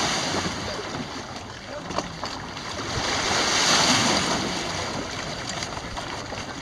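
Wind blowing on the microphone over small waves washing against a sandy shore, the wind swelling to a gust about halfway through.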